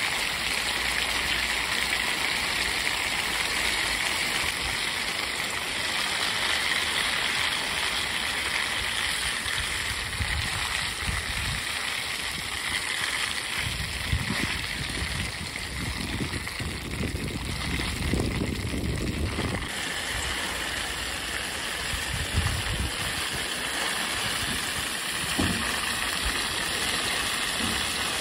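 Wild yamabudō grapes frying in hot oil in a foil pan: a steady sizzle and bubble of the oil, with a few sharp ticks. A low rumble comes and goes around the middle.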